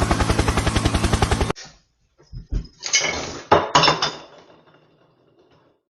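A fast, evenly pulsed chopping sound with music that cuts off suddenly about one and a half seconds in, followed by a run of loud crashes and clatters that dies away.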